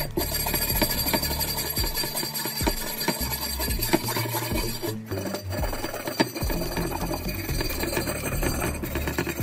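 Hand wire brush scrubbed back and forth over the rusty steel of an axe head: a continuous rasping scrape of repeated strokes, stripping surface rust. It breaks off briefly about five seconds in.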